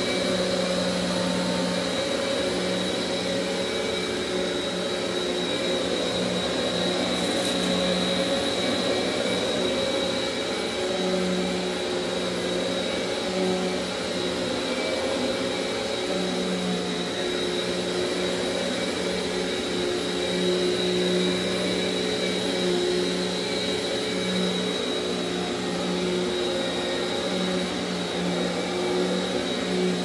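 Simplicity upright vacuum cleaner running steadily on carpet: a constant motor drone with a thin high whine over it, the low hum swelling and easing a little as the cleaner is pushed back and forth.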